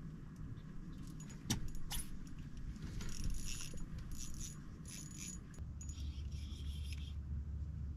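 Light metallic jingling and clinking in short bursts, after a couple of sharp clicks, over a steady low hum that gets stronger a little past halfway.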